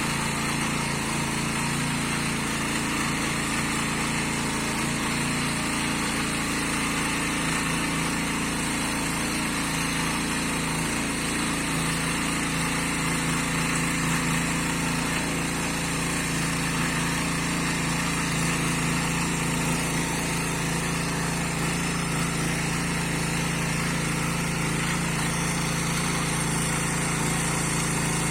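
Kaan 26S motor hoe's small petrol engine running steadily as it tills medium-hard soil.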